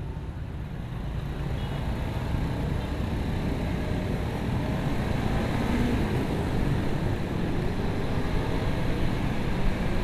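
Wind rush and engine of a Honda CBR150R motorcycle pulling away from a standstill and picking up speed. The wind noise grows steadily louder as the bike accelerates.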